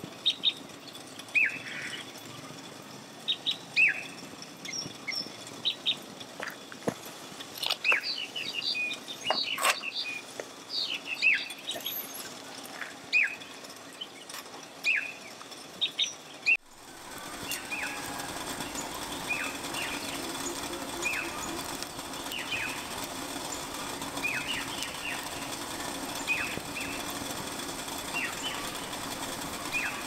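Birds chirping over and over with short, falling calls, while a wood fire crackles and pops. About halfway through, a steady hiss with a low hum comes in: water heating in a kettle over the fire. The birds keep calling over it.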